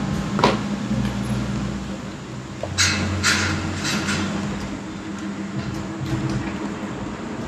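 Outdoor ambience: a steady low hum with wind rumbling on the microphone, and a few brief hissing rustles in the first half.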